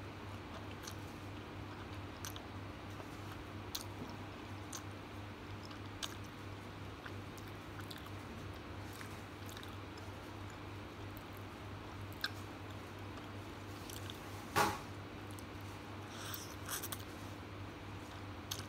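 Close-miked eating of yellow noodles: soft chewing and slurping with scattered small clicks, over a steady low hum. A brief, louder sound stands out about two-thirds of the way through.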